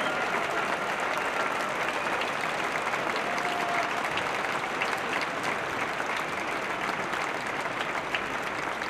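A large concert audience applauding steadily, many hands clapping together.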